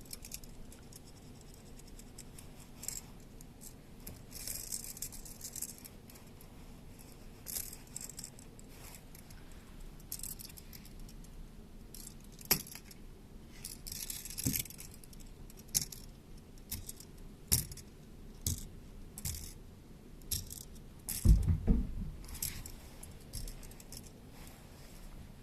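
Kittens moving about and playing: scattered light clicks, rattles and rustles, with a few heavier thumps about 21 seconds in.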